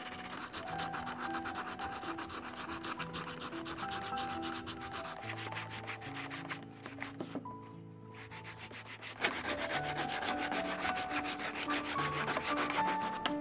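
Sandpaper rubbed by hand back and forth over the fibrous husk of a coconut in rapid rasping strokes. The strokes thin out for a moment about two-thirds of the way through, then come back louder. Soft background music plays underneath.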